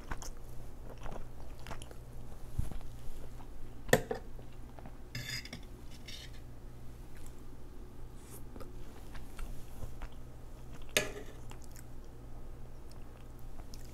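A metal fork clinking and scraping against a tray while scooping noodles, with a few sharp clinks, the loudest about four seconds in and again about eleven seconds in, and quiet chewing in between.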